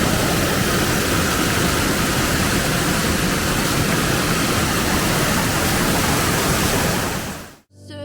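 Waterfall rushing in a loud, steady roar, fading out near the end.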